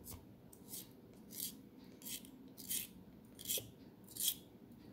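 Wooden pencil being turned in a small hand-held plastic Doms crystal sharpener, its blade shaving the wood with a dry scraping rasp on each turn. About eight strokes come in a steady rhythm, roughly one every three-quarters of a second.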